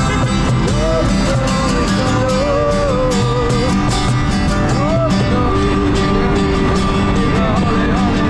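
Worship song playing: a singing voice over guitar accompaniment, the melody held in long sung notes.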